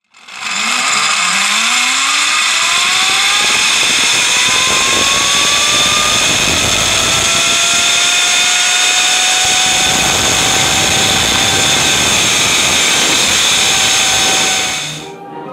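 Zip-line trolley pulleys running along a steel cable: a loud whine that rises in pitch over the first several seconds as the rider gains speed, then holds steady over a constant rushing noise. It cuts off suddenly near the end.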